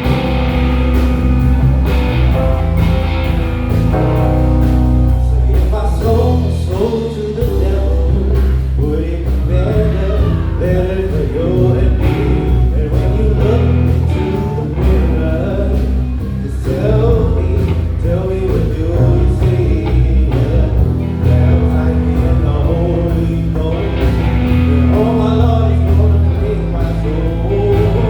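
Live band playing an up-tempo number: a steady bass and drum groove with keys, and a melodic lead line that bends and slides in pitch over them through the middle.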